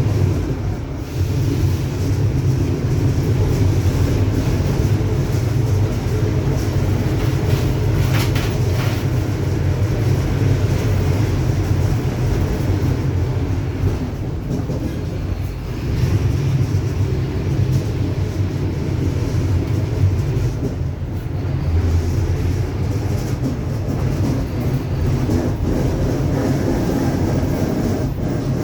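Mercedes-Benz OF-1721 BlueTec5 city bus under way: a loud, steady, low drone of engine and drivetrain with a growling differential. It eases off briefly a few times.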